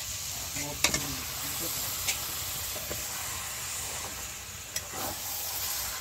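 Raw beef chunks sizzling in hot spiced oil in a metal karahi while being stirred with a metal spatula, a steady hiss with a few sharp clinks of the spatula against the pan.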